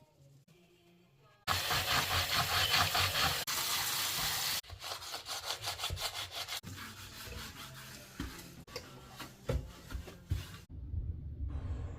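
Scrubbing a dirty bathroom sink with quick back-and-forth strokes. It starts loud about a second and a half in, turns softer partway through, and gives way to a lower, rumbling sound near the end.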